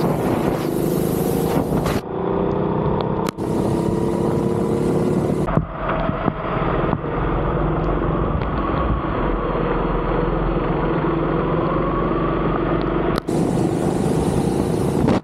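Go-kart engines running at speed on a wet track, their pitch rising and falling with the throttle through the corners, over a steady hiss. The sound jumps abruptly a few times.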